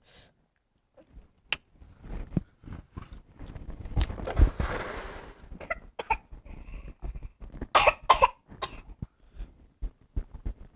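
A person coughing: a longer cough about four seconds in, then two sharp coughs close together about eight seconds in, among small clicks and knocks.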